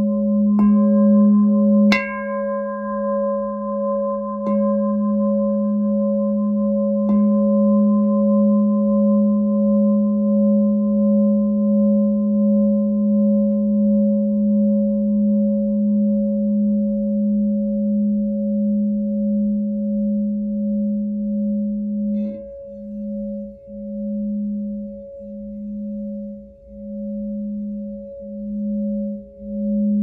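Lemurian Seed glass singing bowl ringing with a sustained, layered tone. Four brief sharp clicks come in the first seven seconds and one more about 22 seconds in, after which the low tone pulses, swelling and fading about once a second.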